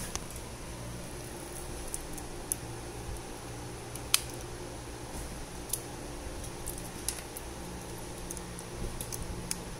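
Light clicks and handling noises of cables and connectors, with one sharp click about four seconds in as a USB plug is pushed into a CarPlay adapter, over a steady low hum.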